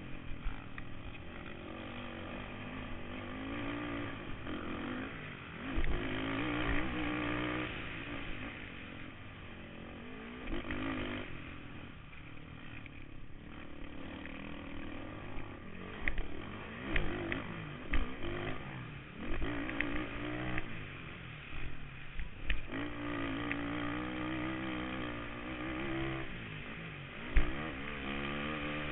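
Kawasaki KFX 450R quad's single-cylinder four-stroke engine revving up and falling off again and again as the rider works the throttle around a motocross track, heard close up from the quad itself. Several sharp knocks cut through it, the loudest near the end.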